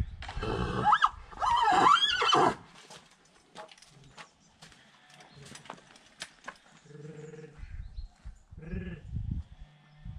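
A horse neighing twice in the first couple of seconds: two loud, high, quavering calls. These are followed by quieter scattered knocks.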